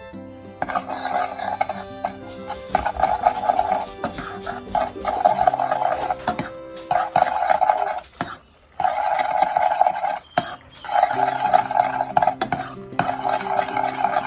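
Rough rasping, scraping strokes of food preparation in about seven bursts of a second or so each, with short pauses between, over background music.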